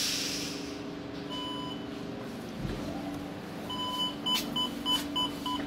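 Electronic beeps from a KONE EcoDisc lift: one beep lasting about half a second, about a second in, then a fast repeating beep of about three a second from just past the middle. A steady low hum runs under them, and there is a brief hiss at the start.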